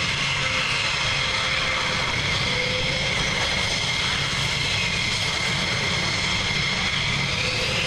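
Jet engines of several military jets running on the runway: a steady roar with a high, even whine over it.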